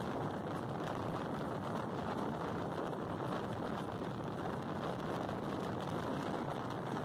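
Steady engine and road noise of a moving passenger van, heard from inside the cabin, even throughout with no distinct events.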